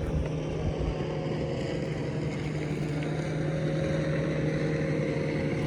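A boat motor running steadily with an even hum, with some wind on the microphone.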